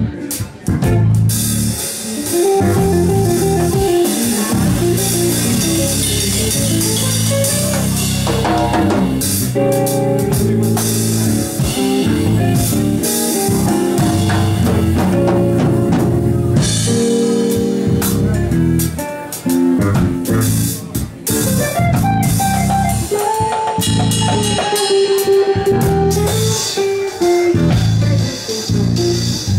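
A live trio of hollow-body electric guitar, bass guitar and drum kit playing. The guitar plays runs of single notes over the bass, and the drums are played with sticks, with cymbals going all the way through.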